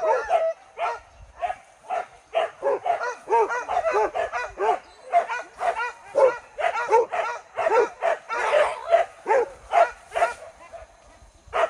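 A pack of boar-hunting dogs yelping and barking in rapid, overlapping cries at several pitches, with a short lull about ten seconds in.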